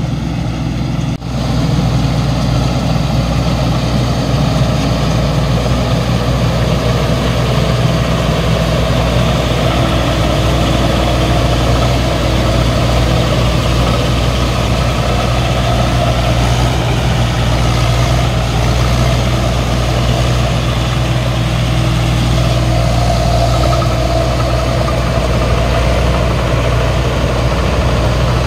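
Tracked rice combine harvester's engine and machinery running steadily at close range while it cuts standing rice, a continuous low hum with no change in speed.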